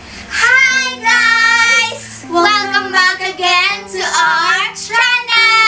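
A child singing a cheerful tune in long held notes, some sliding in pitch, over backing music with steady low notes.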